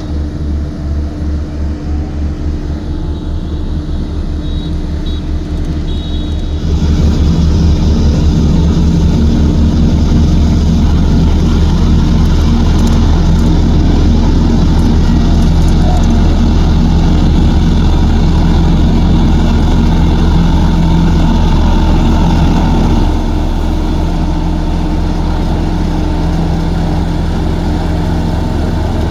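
Heavy diesel engine of an earthmoving machine running steadily with a low pulsing note, growing louder about seven seconds in as it works harder, then easing back a little near the end.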